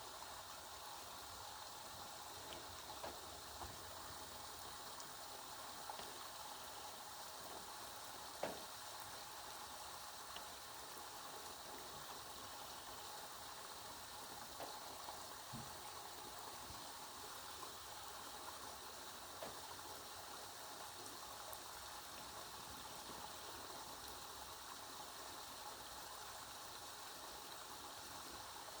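Steady rain falling, heard as a faint even hiss with scattered sharper drop hits, the loudest about eight and a half seconds in.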